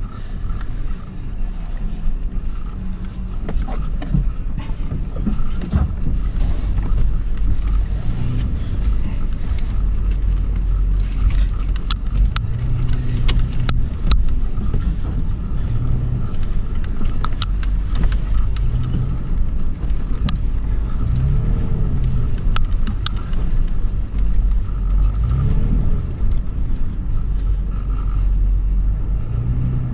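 Toyota 4Runner's 4.0-litre V6 running under load as the SUV drives over sand dunes, a steady low rumble with the engine note rising and falling a few times. A scatter of sharp clicks or knocks comes through in the middle.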